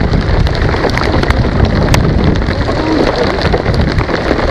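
Heavy rain pouring onto a lake's surface and a kayak, a dense hiss with a low rumble underneath, pricked by sharp ticks of single drops striking close by.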